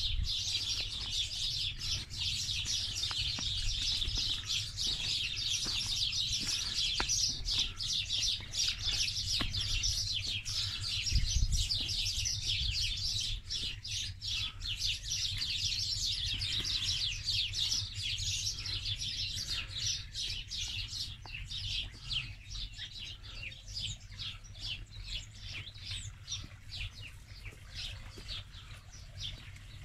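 Many small birds chirping at once in a dense, continuous chorus that thins out over the last several seconds.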